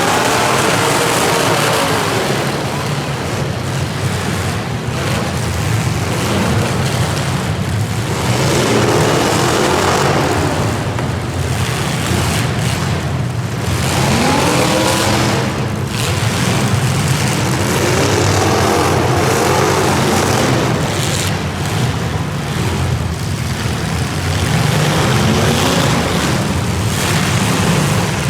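Several car engines running hard, revving up and down again and again over a constant loud engine din.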